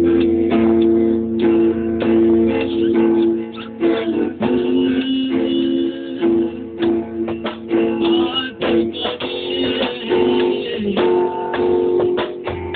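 Guitar strumming chords in an instrumental passage of a rock song, with no singing.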